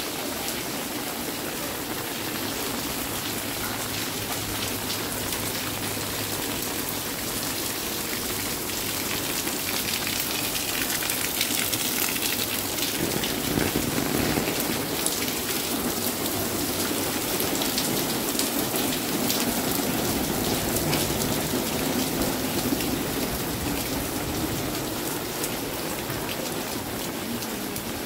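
Steady rain falling on a paved alley, with many separate drops ticking close by; it comes down a little heavier for a while in the middle.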